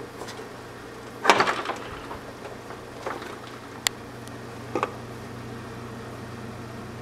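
The hinged lid of a George Foreman grill being shut on raw ground turkey with a clattering knock about a second in. It is followed by a single sharp click and then a quick double click, over a low steady hum.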